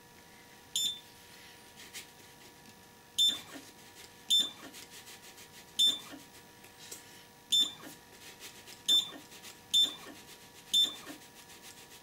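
Anycubic Photon resin printer's touchscreen beeping at each tap, about eight short high beeps at irregular intervals, as the build plate is lowered step by step in 0.1 mm increments. Some beeps are followed by a brief faint buzz of the Z-axis motor moving.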